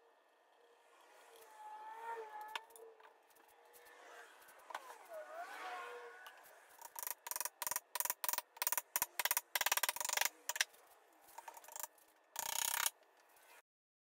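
Wooden mallet tapping the table's glued panels home: a quick run of sharp knocks for about four seconds midway through. Fainter squeaks come before it, and a short rough burst of noise near the end.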